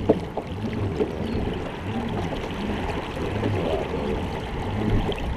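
Water sloshing and trickling along the hull of a pedal-drive fishing kayak as it turns, with low pulses about once a second. A single sharp knock just after the start.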